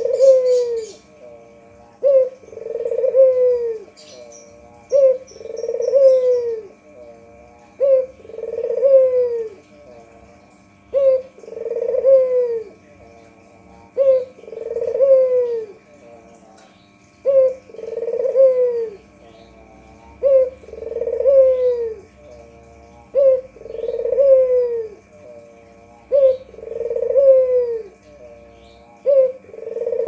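White ringneck dove (puter) cooing: a two-part coo, a short note and then a longer falling one, repeated about every three seconds.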